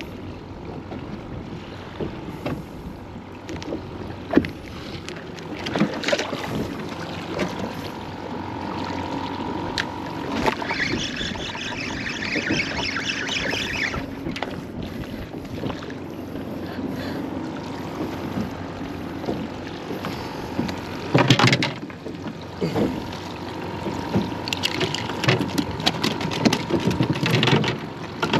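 Small waves lapping against a small boat's hull, with wind on the microphone and knocks from handling fishing tackle. A high whirr runs for a few seconds about midway. Near the end the fiberglass fish box hatch is opened with a clatter of knocks.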